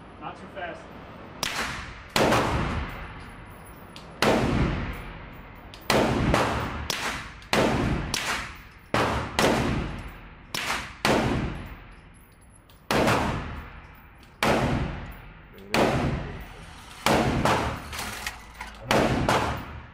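Handgun fired in a long string of shots, some in quick pairs and others about a second or two apart. Each sharp crack echoes and fades in an indoor shooting range.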